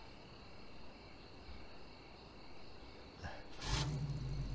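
Faint outdoor ambience with a thin, steady high-pitched tone. About three and a half seconds in, a low steady hum starts and grows louder.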